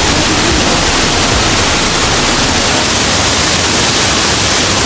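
Waterfall rushing, a loud, steady wash of falling water with no change.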